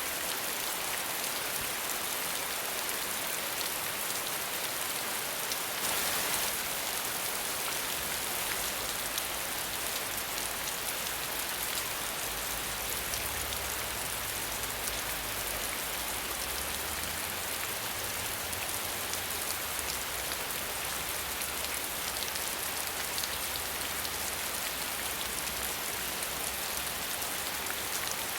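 Steady rain falling, an even hiss of many drops, with a brief louder swell about six seconds in and a low rumble underneath from about eight seconds on.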